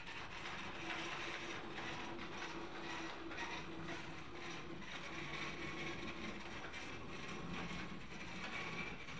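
Geared drive motors of a TurtleBot2's Kobuki base whirring steadily as the robot drives itself, with faint clicks and rattles throughout.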